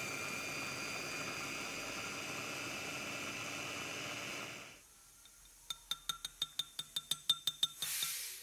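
Clikon electric food chopper running steadily with a high whine as it crushes digestive biscuits to crumbs in its glass bowl, stopping about five seconds in. A quick run of sharp taps follows, then a short scrape of a metal spoon in the glass bowl of crumbs near the end.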